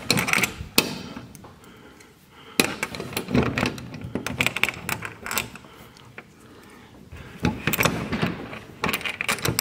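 Light metal clinks and rattles of steel washers, lock washers and nuts being slipped onto carriage bolts and threaded on by hand, coming in clusters with short pauses between.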